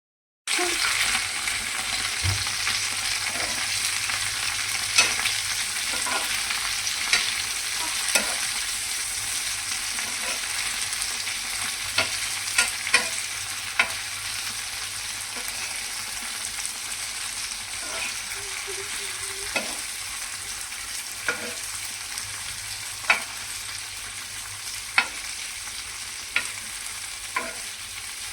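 Okra sizzling as it fries in oil on a tawa (flat griddle), with a steady hiss and a spatula scraping and tapping against the pan every second or two.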